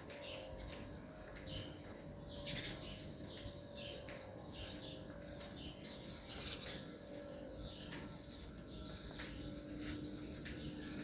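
Small birds chirping over and over in quick short calls, one louder call about two and a half seconds in, over a steady low background hum.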